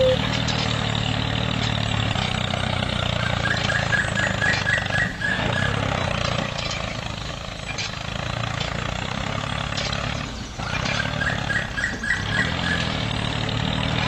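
A mini tractor's small motor running steadily under load, with two short runs of quick, high chirps over it.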